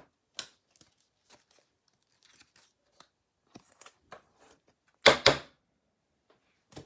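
A trading card in a soft plastic sleeve being slid into a rigid plastic toploader: faint plastic rustles and small clicks, with one louder double rustle about five seconds in.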